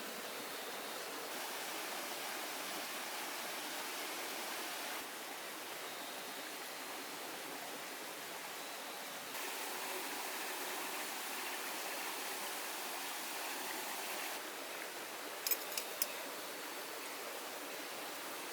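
Heavy rain falling steadily, a continuous rushing hiss. A few sharp clicks come close together about fifteen seconds in.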